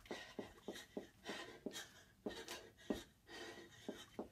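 Quick, even footfalls of running in place on a rug over carpet, about three light thuds a second, with hard breathing between them.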